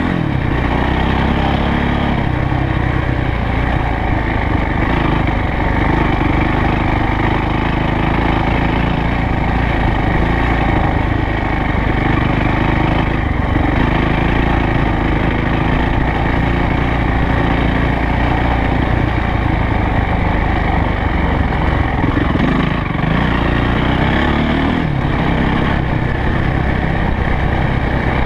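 Yamaha YZ450F dirt bike's single-cylinder four-stroke engine running under way as the bike rides a grassy dirt track. The engine note rises with the throttle near the start and again about three quarters of the way through.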